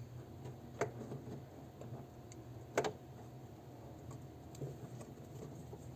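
Faint clicks from a small hand tool cutting into a wire's insulation while stripping the cable: two sharp ones about two seconds apart, a few softer ticks, and a low steady hum underneath.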